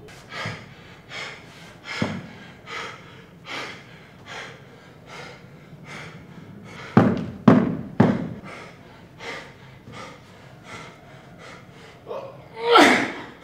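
A man breathing hard in short, sharp exhales, a little more than one a second, as he moves about. Heavier thuds or grunts come about halfway through, and a loud falling vocal sound near the end.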